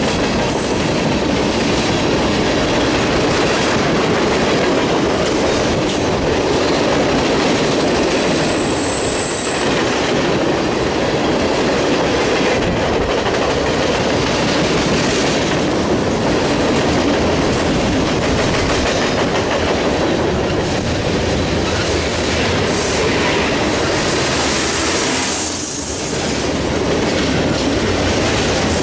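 Mixed freight train of covered hoppers, tank cars and flatcars rolling past, a steady, loud noise of steel wheels on rails. Two short high-pitched wheel squeals cut through, about nine seconds in and again about twenty-two seconds in.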